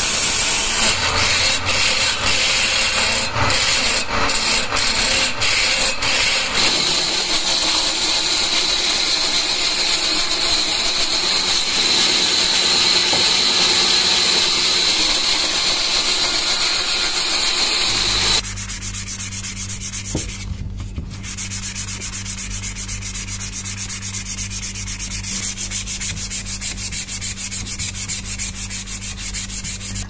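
A chisel scraping a spinning wooden hatchet handle on a wood lathe, with irregular clicks, then a steady cutting noise from a band saw blade going through the wood. About 18 seconds in this gives way to a quieter steady electric motor hum with fast regular ticking.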